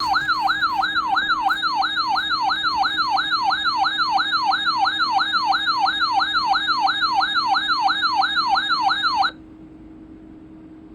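Weather alert radio's warning alarm sounding as a warbling siren, its pitch sweeping up and down about three times a second over a steady low hum, then cutting off suddenly about nine seconds in, signalling a required weekly test.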